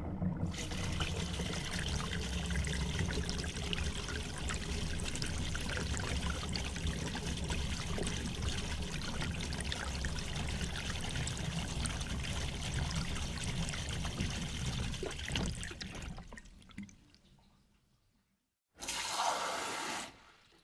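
Water running and trickling in a steady rushing stream with a low rumble for about sixteen seconds, then fading away. Near the end a second, brief gush of water follows.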